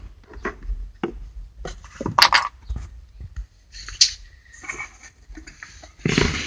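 Plastic knocks and clicks of a 2005 Honda Odyssey glove box being pushed back into the dashboard, the loudest clatter about two seconds in.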